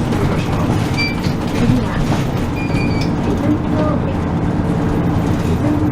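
Steady engine and road rumble of a Kyoto Bus heard from inside the moving bus, with a couple of brief high squeaks about a second in and around three seconds in.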